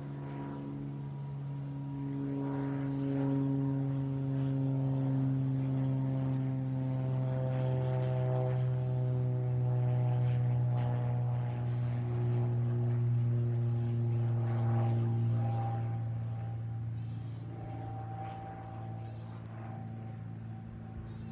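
Cessna 182 Skylane's single piston engine and propeller droning as it passes overhead, growing louder for the first few seconds and fading in the last few, its pitch falling slowly throughout.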